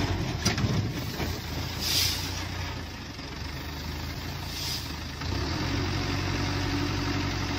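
Heavy log-loaded army-style truck's engine running at low revs, with short hisses of air about two seconds in and again near five seconds. The engine note picks up a little about five seconds in.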